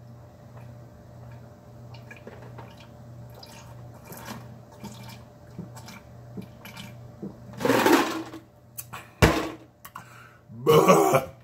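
A man gulping a drink from a large glass jar, with soft swallowing clicks for several seconds. About eight seconds in comes a loud breathy exhale, then a sharp thump, and near the end a loud burp.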